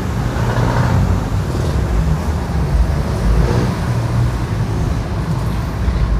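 Steady low rumble of passing road traffic, with no distinct knocks or tones.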